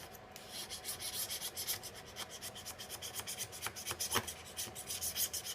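A Stanley knife blade in a holder scraping the factory lacquer off a steel chisel, in quick repeated strokes.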